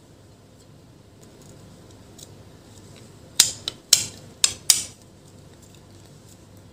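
Five sharp clicks and taps of a laptop cooling fan's thin metal cover and plastic housing being handled and pressed together. They come in a quick cluster about halfway in, each with a short ringing tail.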